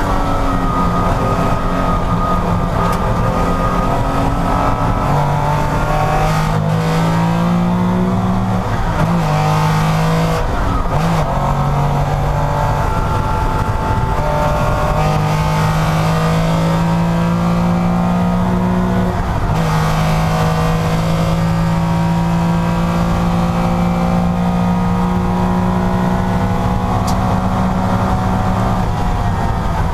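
Porsche racing engine at high revs under load, its note climbing through the gears with several breaks at gear changes, around 9, 11 and 19 seconds in.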